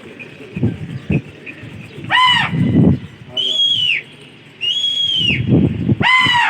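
Four loud, shrill whistles, a second or so apart. Two are held high and drop away at the end, and two are shorter and arch up and down. Rumbling low noise fills the gaps between them.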